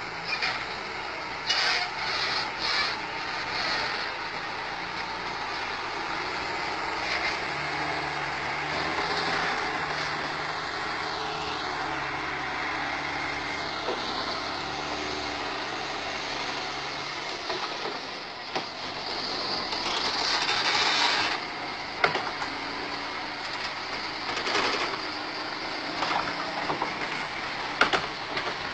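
Diesel engine of a heavy log truck pulling two loaded trailers, running slowly under load as it crosses a timber trestle bridge. Sharp knocks sound now and then. The engine's low steady note drops away a little past halfway.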